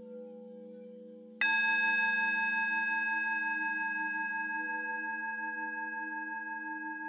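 Ambient music: a bell-like tone struck once about a second and a half in, ringing on and slowly fading over a steady low drone.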